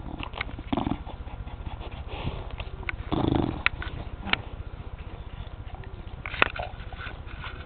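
A bulldog sniffing and chewing a carrot, with a few sharp crunches and a louder snuffle about three seconds in.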